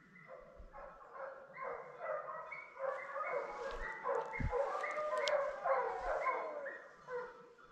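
A pack of hunting dogs baying together on a wild boar drive, several voices overlapping; the chorus builds up, is loudest in the middle and thins out near the end. The baying is the dogs giving tongue as they work or pursue a boar.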